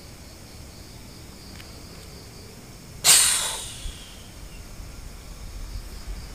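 A single sharp, loud hissing blow of breath about three seconds in, dying away over about half a second, forced out during a ritual. Under it, a steady chirring of crickets.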